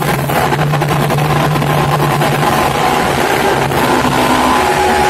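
Harsh noise music: a loud, unbroken wall of distorted noise with a low drone and a higher held tone inside it.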